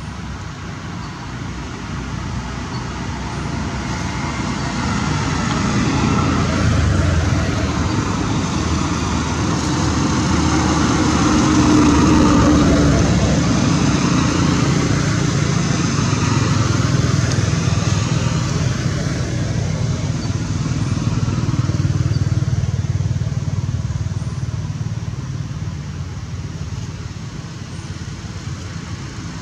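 Road traffic passing: motor vehicle noise, a low rumble with noise above it, builds over about ten seconds, stays loud for several more, then slowly fades.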